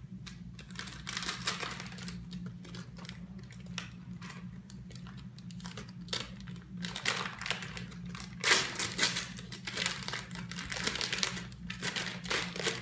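Red gift wrapping crinkling and rustling in the hands as a small present is unwrapped. It comes in irregular bursts, busiest in the second half.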